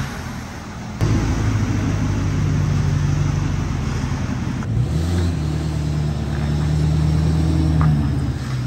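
Lifted Chevrolet Silverado 2500HD pickup's engine running with a steady low drone. The drone changes abruptly about a second in and again around halfway.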